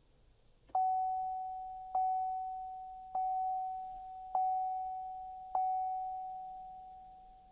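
Chevy Volt's dashboard warning chime: five single bell-like tones at one pitch, about 1.2 seconds apart, each ringing down slowly. It sounds as the car, started with the power button, fails to go into ready mode.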